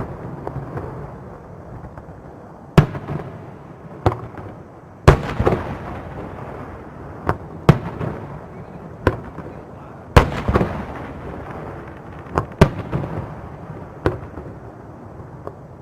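Aerial fireworks shells bursting: about a dozen sharp booms at irregular intervals a second or two apart, each trailing off in a rolling echo.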